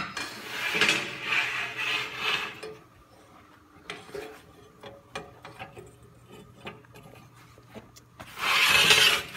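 Steel railing pieces scraping and rubbing against each other as they are handled and fitted together, with scattered light clicks in a quieter middle stretch and a louder scrape of about a second near the end.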